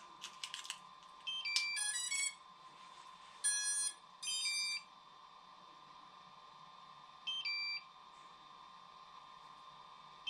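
A few clicks, then short electronic beep tunes of stepped pitch: four sequences, the middle two close together as a double beep. They come as a bound FPV quad is powered up to link with a DJI FPV controller. A faint steady whine runs underneath.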